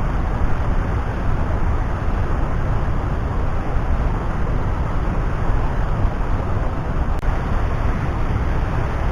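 Waterfall: a steady rush of falling water, deep and heavy in the low end, with no let-up.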